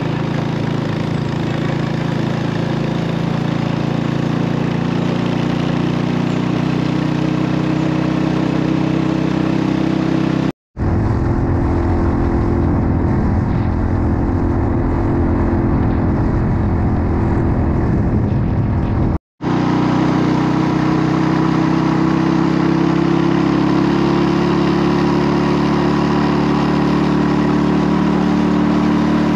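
Motorcycle engine running under load on a steep climb, its pitch rising slowly. The sound drops out briefly twice where the footage is cut, and the middle stretch carries a heavier low rumble.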